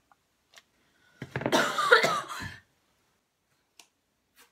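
A short wordless vocal outburst from a young woman, lasting about a second and a half, with a few faint clicks before and after it.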